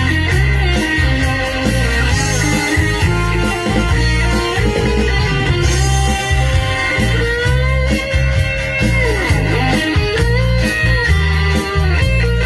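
Band music without vocals: an electric guitar plays a melodic lead with string bends over a steady bass line and drums.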